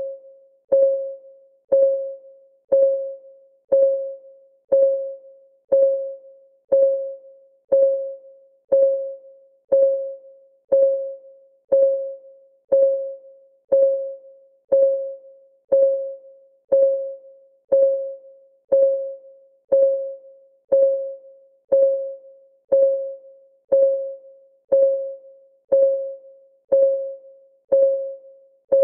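Countdown timer's ticking-clock sound effect, one tick a second. Each tick is a short, pitched tone that fades quickly, evenly spaced without a break.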